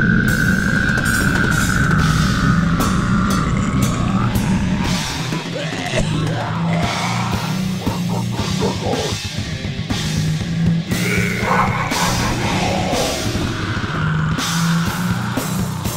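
Goregrind music: distorted guitars and bass over fast, dense drumming, with a high held tone sliding slightly down over the first four seconds.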